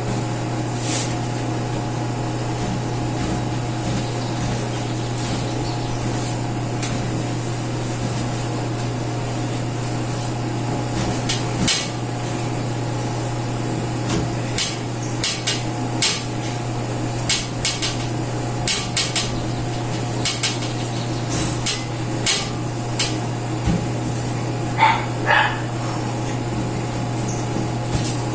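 Scattered light knocks and clicks of kitchen items being handled and set down during cleaning, coming more often from about twelve seconds in, over a steady low hum. Two brief squeaky notes sound near the end.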